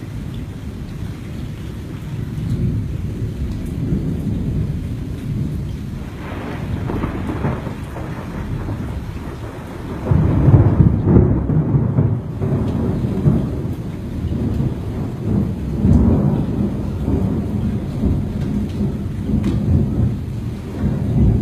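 Thunder rumbling in rolling waves, with the loudest, sudden peal about halfway through and another swell a few seconds later.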